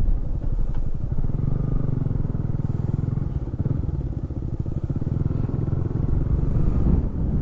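Motorcycle engine running steadily close to the microphone, with a fast even pulse low in pitch; it cuts in suddenly at the very start.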